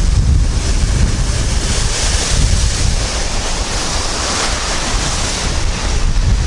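Baltic Sea surf breaking and washing in foam around wooden groynes, a steady churning rush of water. Strong wind buffets the microphone with a low rumble throughout.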